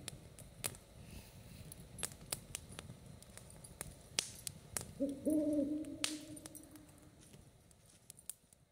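An owl hoots once, a low held note of about two seconds, about five seconds in. Scattered sharp crackles of a campfire run throughout, and the sound fades out near the end.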